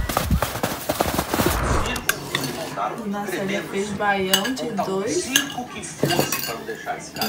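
About two seconds of rushing outdoor noise, then a metal serving spoon clinking and scraping against a glass baking dish of rice and beans. A voice talks in the background.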